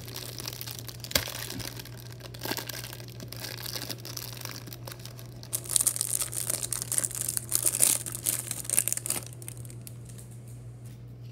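Clear plastic cellophane wrapper being torn and peeled off a stack of trading cards by gloved hands, crinkling and crackling, loudest in the middle stretch and dying down near the end.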